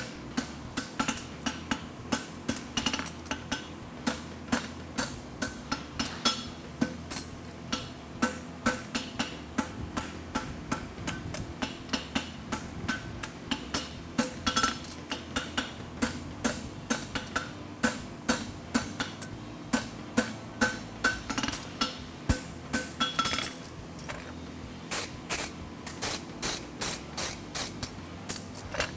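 Hand hammer striking a red-hot steel bar on an anvil in a steady run of blows, about two to three a second, as the bar is forged into a horseshoe. There is a brief pause about three-quarters of the way through.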